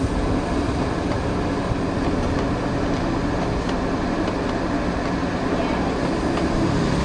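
Steady low hum of the electric blower fan that keeps an inflatable tube man (air dancer) inflated, over even outdoor noise.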